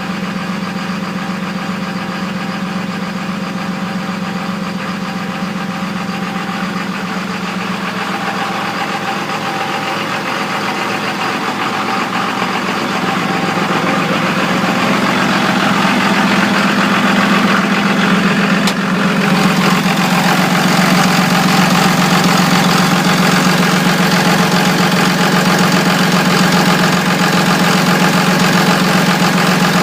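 A 2002 24-valve 5.9-litre Cummins inline-six turbo diesel running at a rough idle, with a steady diesel knock. The sound grows louder partway through.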